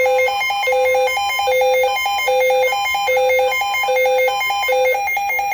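Electronic emergency alert alarm: a fast, repeating pattern of high beeps at several pitches over a lower tone pulsing a little faster than once a second, cutting off abruptly near the end.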